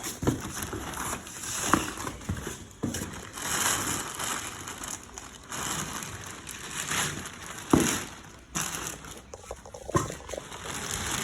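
Rustling, crackling noise that swells and fades, with a few sharp knocks; the loudest knock comes a little under eight seconds in.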